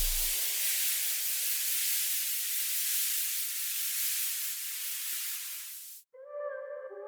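Electronic white-noise sweep in a dance-music transition: a steady hiss that grows thinner and higher as its low end is filtered away, then cuts off suddenly about six seconds in. The synthesizer notes of the next track begin just after the cut.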